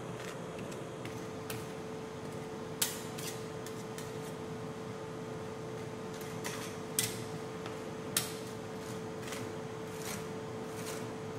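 Metal spatulas scraping and tapping on the frozen steel plate of a rolled-ice-cream pan, spreading the ice cream mix thin. There are several sharp clicks, the loudest about three, seven and eight seconds in, and a steady hum runs underneath.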